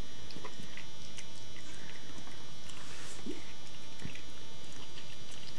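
Faint small animal sounds and soft rustling of blankets as a cat noses among newborn puppies, with one brief rising squeak about three seconds in, over a steady recording hiss.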